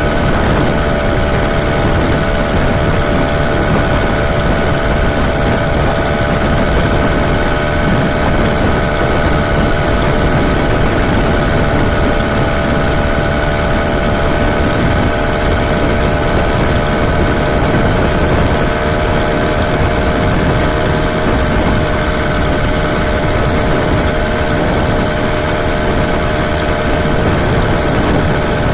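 Motorized bicycle's small kit engine running steadily at cruising speed while riding, an even drone with no change in pitch.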